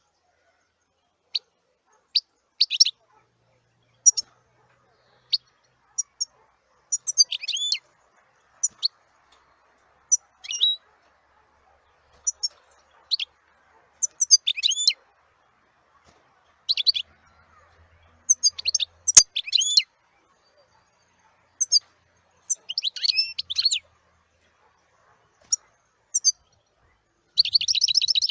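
Small songbird chirping: short high-pitched call notes at irregular intervals, some falling in quick clusters, with a single sharp click about two-thirds of the way through and a fast run of notes near the end.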